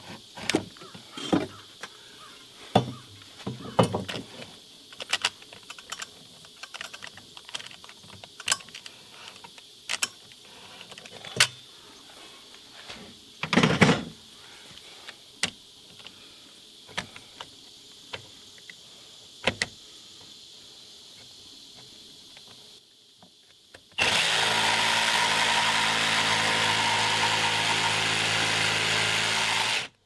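Scattered clicks and knocks of a cordless jigsaw being handled and set against a 2x4, then the Ryobi cordless jigsaw runs at a steady speed for about six seconds near the end, stopping abruptly.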